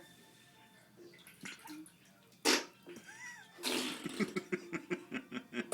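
A baby making a short spluttering raspberry, a fart noise blown against skin, then a soft rhythmic run of laughter.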